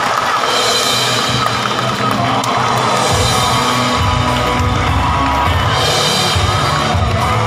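Upbeat show music with a drum-kit beat; a heavy bass comes in about three seconds in.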